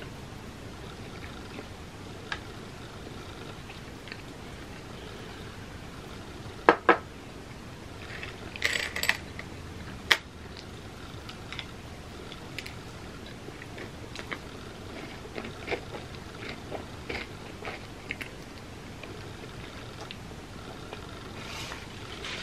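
A person eating a cinnamon roll: quiet chewing and mouth sounds over a steady hiss, broken by a few sharp clicks and taps, the loudest a pair about seven seconds in and a short cluster just after.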